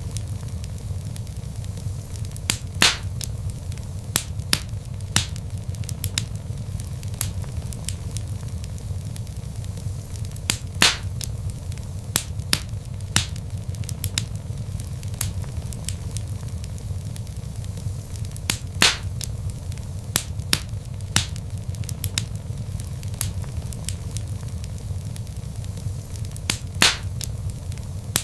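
Log fire burning in a fireplace: a steady low rumble of flames with frequent sharp crackles and a few louder pops.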